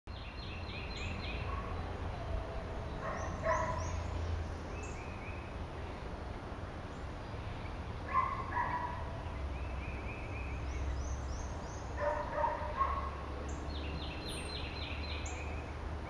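Woodland songbirds singing, among them a black-and-white warbler's distant, thin, high song of quickly repeated notes, heard several times. Louder, lower calls from other birds come about three times, over a steady low rumble.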